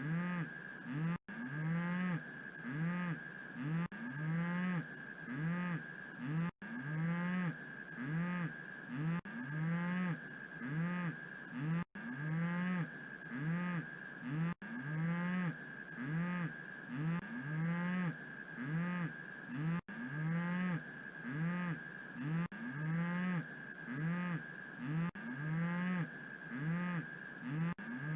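A cow mooing again and again in short, evenly spaced calls, about one and a half a second. A faint steady high tone runs underneath, and the sound drops out for an instant a few times.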